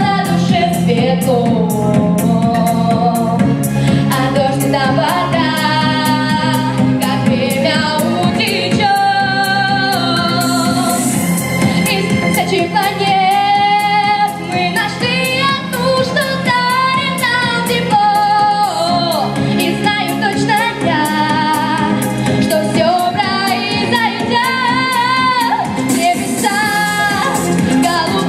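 A female vocalist singing a pop song over a backing track with a steady beat, the voice holding and bending long sung notes.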